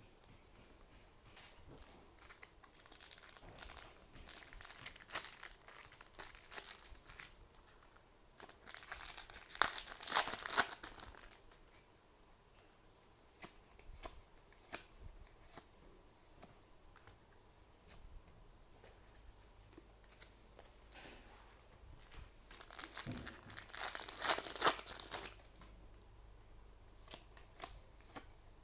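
Foil trading-card booster pack wrappers being torn open and crinkled, in three bouts of rustling and tearing, the loudest about nine to eleven seconds in.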